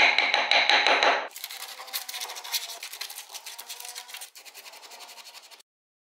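A carving gouge chipping out the spokes of a wooden wheel in quick, loud strokes with a slight metallic ring. About a second in, this gives way to quieter, rapid scratching and rubbing on the wood, which cuts off near the end.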